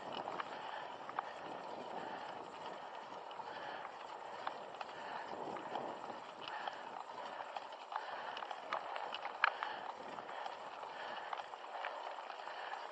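Mountain bike riding over a dirt trail: a steady rush of tyre and trail noise with scattered sharp clicks and rattles from the bike, the loudest about nine and a half seconds in.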